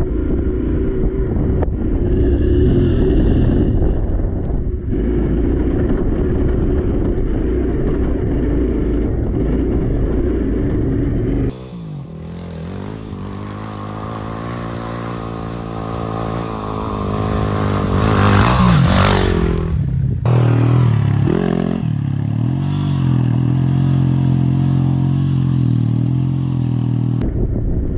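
Motorcycle riding a gravel track, first heard from on the bike as a dense engine and road rumble. About twelve seconds in it is heard from beside the track: the engine note rises in pitch and level as the bike approaches and passes close by at about nineteen seconds. Then a distant bike's engine holds a steady note before the on-bike rumble returns near the end.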